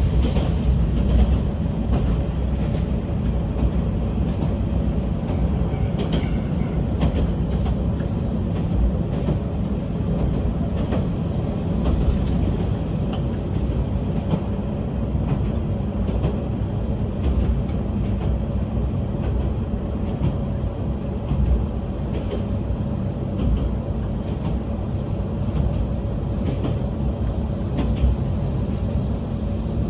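Yamagata Railway diesel railcar running along the line: a steady low rumble of engine and wheels, with a few faint clicks scattered through.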